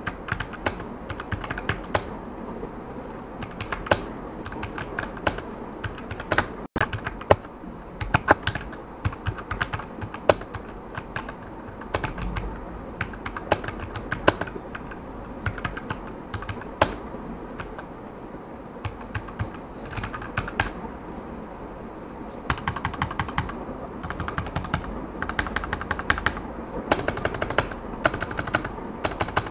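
Typing on an E-Yooso Z686 65% mechanical keyboard with linear red switches: irregular keystrokes, with runs of faster typing in the second half.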